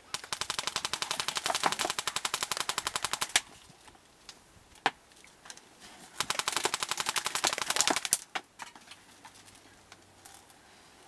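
Airsoft rifle firing on full auto: a long burst of rapid, evenly spaced shots lasting about three seconds, a single shot, then a second burst of about two seconds.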